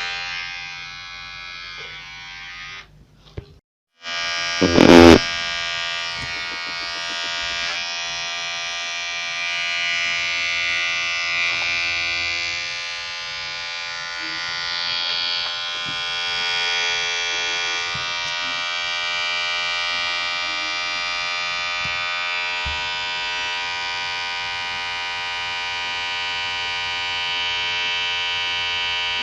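Electric hair clipper running with a steady vibrating buzz. The sound drops out briefly about three seconds in, a single loud knock follows about five seconds in, and then the buzz carries on with its pitch and level wavering slightly.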